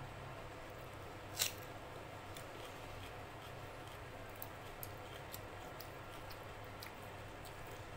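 Quiet eating-by-hand sounds: fingers gathering rice and dal on a plate, with scattered small clicks and one sharper click about a second and a half in, over a steady low hum.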